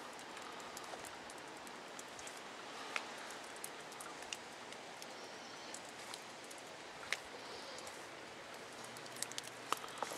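Steady rain falling: a soft, even hiss with scattered sharp ticks of drops striking nearby surfaces.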